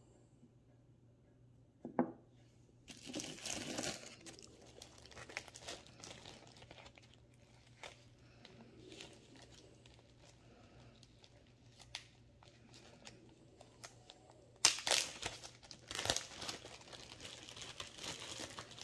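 Plastic bag crinkling and rustling as it is handled, loudest in a spell about three seconds in and a longer one near the end, with quieter rustling between. A single sharp knock sounds about two seconds in.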